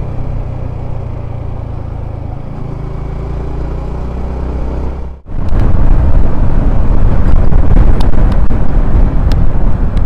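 Sport motorcycle riding at highway speed: a steady engine note mixed with rushing wind on the microphone. The sound drops out briefly about five seconds in, after which the wind noise is louder and rougher, with scattered buffeting clicks.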